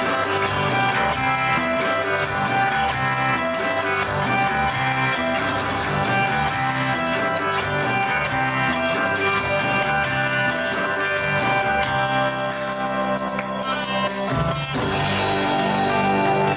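Live rock band playing an instrumental passage: electric guitar, bass guitar and saxophone over drums with steady cymbal strikes. About fourteen seconds in the beat stops and the band holds a final ringing chord.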